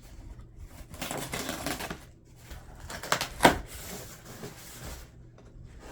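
Crackling plastic shrink wrap being handled and worked loose from a stack of hardcover books, with a sharp knock about three and a half seconds in.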